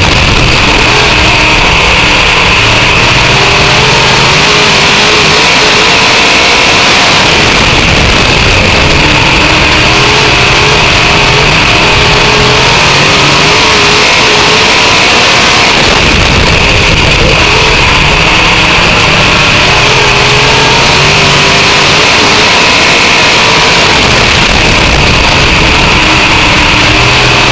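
Dirt-track race car engine running at racing speed, heard very loud from inside the cockpit. Its note drops and climbs every several seconds as the car lifts into the turns and accelerates down the straights.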